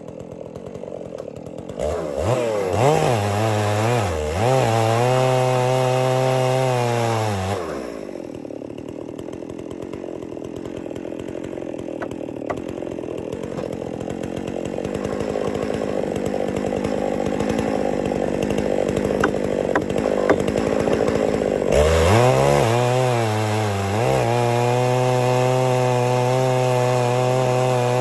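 Holzfforma G660 two-stroke chainsaw running at full throttle in a chainsaw mill, ripping a slab from a red oak log. A couple of seconds in, the revs climb to a high steady note. For about fourteen seconds in the middle the pitch drops to a lower note, then it climbs back to the high steady note and dips near the end.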